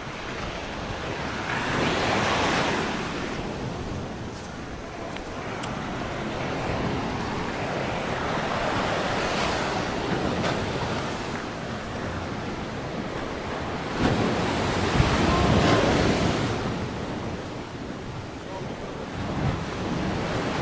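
Mediterranean sea waves breaking and washing ashore, the surf swelling three times, with wind noise on the microphone.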